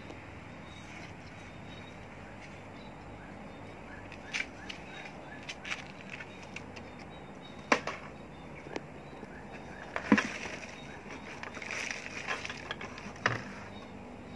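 A hand pressing and scraping loose potting mix around a sapling's stem in a pot: after a few seconds of steady background hiss, scattered crackles and scrapes, with three sharper knocks in the second half.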